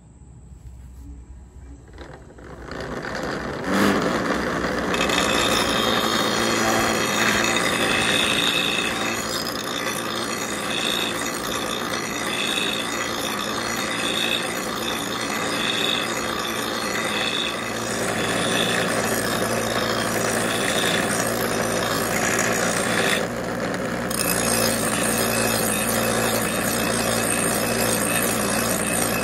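Bench grinder motor spinning up, then a steel mower blade pressed against the grinding wheel: a steady, harsh grinding over the motor's hum. The grinding stops for about a second two-thirds of the way through, then starts again.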